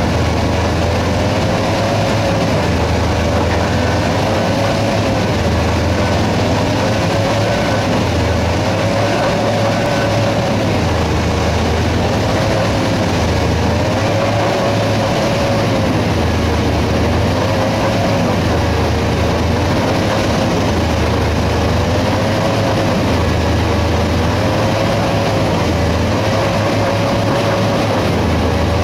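Heavy construction machinery running together: a chain trencher cutting through limestone, with a rock drill and big excavators working close by. It makes a loud, steady mechanical din with a tone that wavers and a low pulse that rises and falls about every two seconds.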